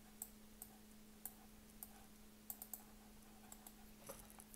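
Near silence broken by about a dozen faint, irregular clicks from working a computer mouse and keyboard, over a steady low hum.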